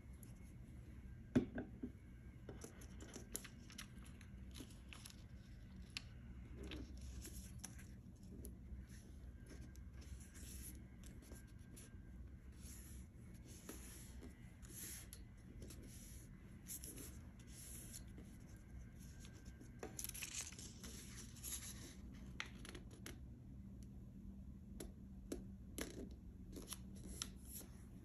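Craft paper being folded and pressed by hand on a wooden table: faint, intermittent crinkling and rustling of the paper strips, with one sharp tap about a second and a half in.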